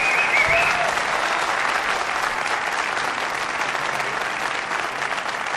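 Audience applauding: dense clapping that eases off slightly, with a brief high wavering cry or whistle over it in the first second.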